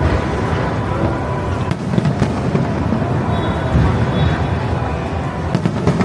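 Fireworks display going off in a continuous barrage: deep booms overlapping one another, with sharp cracks scattered through.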